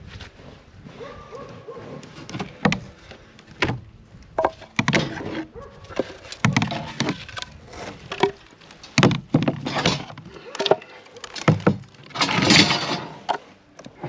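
Footsteps crunching in snow, with sharp knocks of split firewood pieces clattering against each other as they are carried and set down. The longest, loudest crunch comes near the end.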